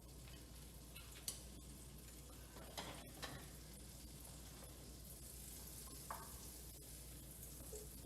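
Chopped onions softly sizzling as they sauté in butter, with a few light clicks in the first few seconds.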